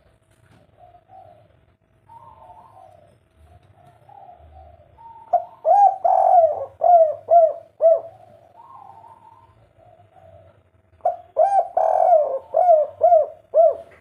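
Spotted dove cooing: two loud phrases of several quick rising-and-falling notes, one starting about five seconds in and another about eleven seconds in, with quieter cooing between them.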